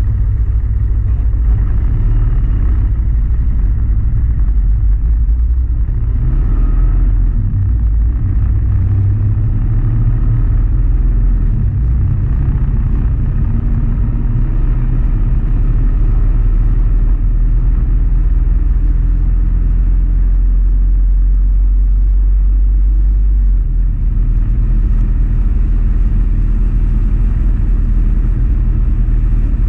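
Motorcycle riding on an open road: a steady low engine drone under a dense, deep rumble of wind and road noise.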